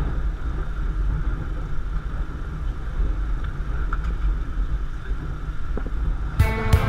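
Steady low outdoor rumble with a faint hiss over it. Music with guitar comes in near the end.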